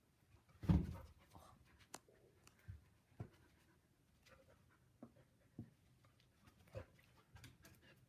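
A Samoyed dog and a Bengal cat scuffling: faint, scattered soft thumps and scrapes, the loudest about a second in.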